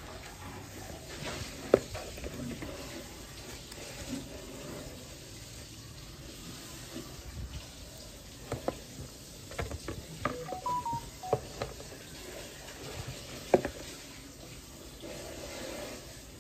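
Handling noise of a bare circuit board and its flat ribbon cable being picked up and turned over in a cardboard box: scattered clicks and taps, bunched together about nine to eleven seconds in, over a steady faint hiss.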